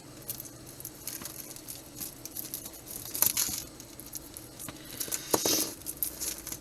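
Costume jewelry and its packaging being handled: light rustling with scattered small clicks and clinks, the clearest a few seconds in and again near the end.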